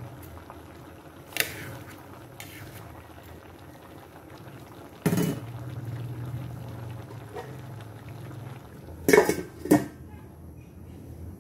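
A pot of papaya in coconut milk simmering, with a metal spoon or ladle clanking against the pot now and then: once about a second in, again midway, and twice more, loudest, near the end.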